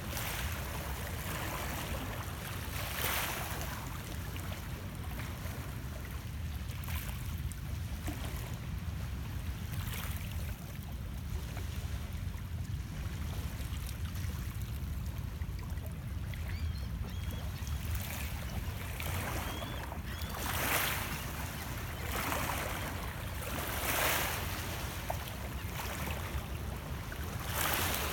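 Small waves of Lake Ontario lapping and washing against shoreline rocks, with a soft wash every few seconds over a steady low rumble.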